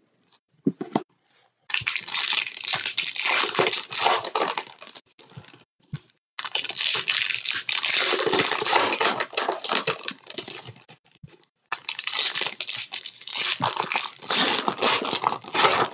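Foil trading-card pack wrappers being torn open and crinkled by hand, in three long stretches separated by short pauses.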